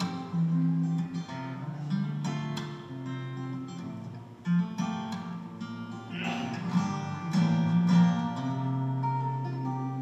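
Solo acoustic guitar played fingerstyle: a plucked melody over held bass notes, with sharp accented attacks here and there.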